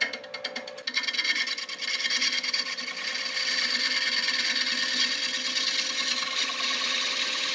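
Bowl gouge taking a very shallow finishing cut on a spinning wooden bowl on a wood lathe: a steady scraping hiss of the cut, with the lathe's motor humming underneath. It begins with a rapid ticking, then settles into an even cut.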